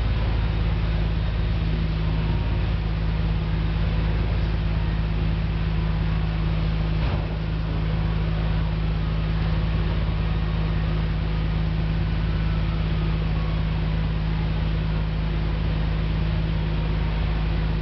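Steady low mechanical drone in a chassis-dyno cell with no revving, holding an even level throughout, with one brief knock about seven seconds in.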